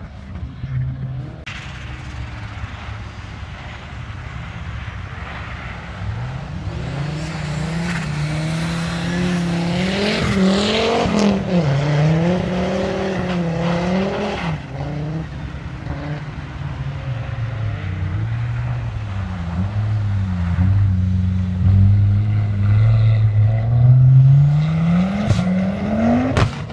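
Race car engine revving hard on a snow track, its pitch rising and falling again and again as the car drifts through the corners, with a few sharp cracks over it. Near the end the engine climbs steeply and gets louder as a car comes close.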